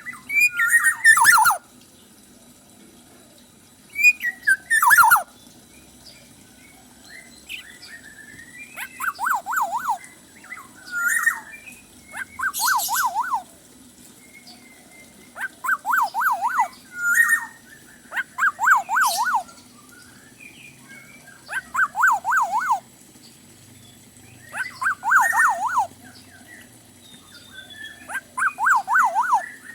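A kepodang (oriole) singing loudly. It repeats a fast, wavering trill phrase every two to three seconds, with two sharp, harsh calls near the start. This is the full-voiced 'gacor' song, rich in mimicked fill phrases.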